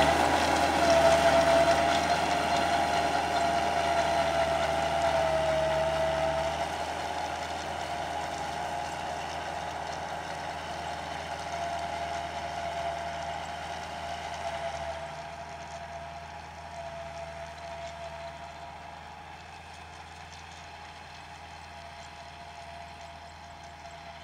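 Kubota tractor's diesel engine running steadily while driving a rotary tiller, with a high steady whine over the engine hum, growing fainter as the tractor works away.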